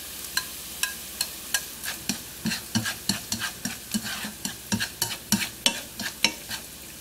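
Diced shiitake mushrooms sautéing in hot oil in a nonstick frying pan, sizzling while a spatula stirs them, with irregular quick taps and scrapes of the spatula on the pan, about two to three a second.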